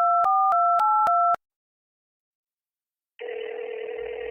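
Telephone keypad touch-tones (DTMF) dialing a quick run of digits, each a two-note beep, back to back. After a gap of about two seconds, a steady electronic line tone with hiss starts near the end.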